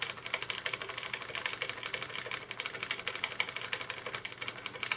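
Computer keyboard's F2 key tapped over and over in quick succession, about eight clicks a second, to get into the BIOS setup as the PC boots.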